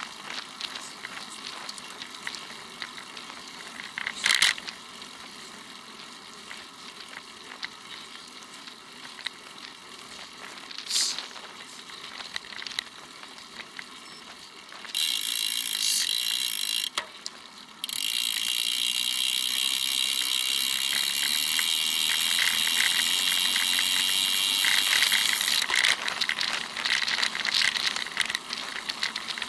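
Road bicycle rolling on pavement, heard through a bike-mounted camera: light rattling and clicking throughout, with a few sharper knocks. About halfway through, a loud steady freewheel buzz from the rear hub starts as the rider coasts, breaks off briefly, and runs for about ten seconds before pedalling resumes.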